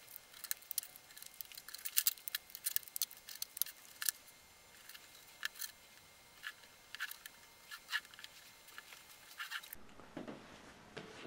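Sped-up handling sounds: quick, irregular clicks and light scrapes of a tape dispenser, clear plastic angle strips and cardboard being handled and pressed together. They stop shortly before the end, leaving faint room tone.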